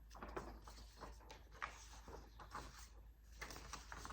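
Faint scattered taps and soft rustles of handling noise near the microphone.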